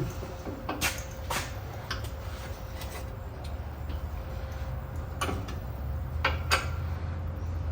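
Scattered light clicks and taps of hand tools and bolt hardware, about half a dozen spread unevenly, over a steady low hum.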